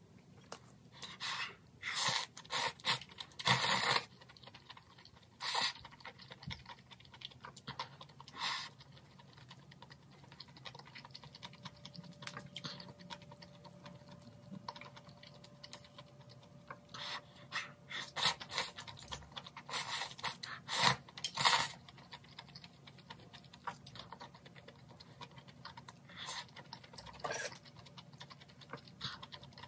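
Close-miked slurping of glass noodles and spicy broth, with sips from a small bowl and quieter chewing between. The slurps come in clusters of short bursts, several in the first few seconds and another run in the middle.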